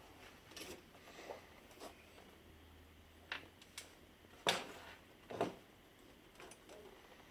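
Scattered light clicks and knocks as laser printer parts are handled during disassembly or reassembly, with the two loudest knocks about a second apart a little past halfway.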